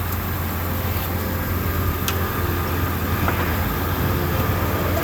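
A vehicle engine running steadily at low revs as the pulling vehicle creeps forward to tension the chains on the car body, with a couple of faint clicks partway through.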